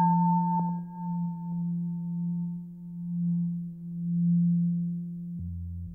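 Drone music of sustained pure electronic tones: a steady low tone that slowly swells and ebbs, under a higher tone that fades away over the first two seconds. A deeper tone comes in near the end.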